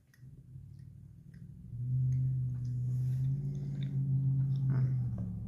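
A man humming a long, steady, closed-mouth "mmm" of appreciation while eating a cookie, starting about two seconds in and lasting about three seconds.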